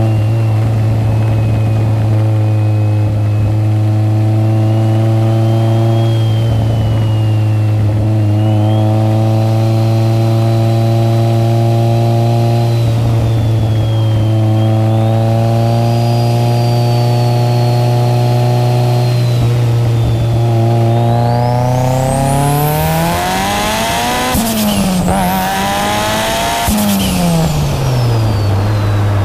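Turbocharged Mitsubishi Lancer Evolution VII 4G63 four-cylinder, a big-turbo build of about 500 hp, heard from inside the cabin: it cruises at steady revs with a high turbo whine wavering above the engine note. About 21 seconds in it accelerates hard, the revs climbing, dipping once at a quick gear change and climbing again, then falling away near the end as the turbo whistle winds down.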